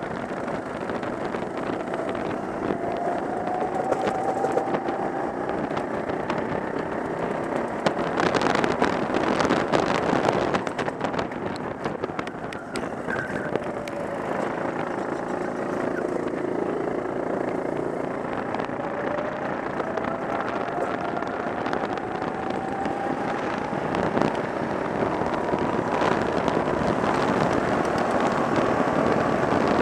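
Go-kart engine running under throttle on track, its pitch climbing slowly as the kart accelerates, under heavy wind noise on the onboard microphone. A louder rush of noise comes about eight seconds in and eases off after about three seconds.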